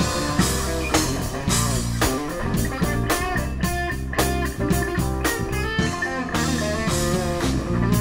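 Live outdoor wedding band playing, a mix of amplified and acoustic instruments with a steady beat, recorded unedited on a Zoom H6's built-in mid-side microphone capsule, with detailed highs and a light low end.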